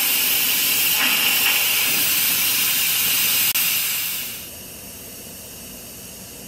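Instant Pot pressure cooker venting steam through its steam release valve in a quick release: a loud, steady hiss that dies down about four seconds in to a faint hiss as the pressure falls.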